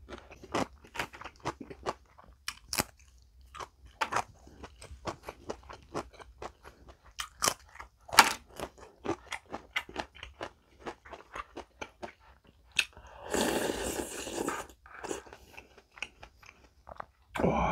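Close-miked crunchy chewing and biting, a raw green chili pepper among what is being chewed, in quick irregular crunches. About thirteen seconds in, a longer breathy rush lasts over a second.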